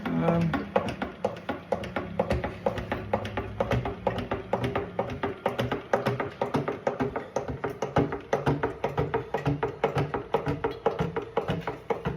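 Music with a quick, steady beat.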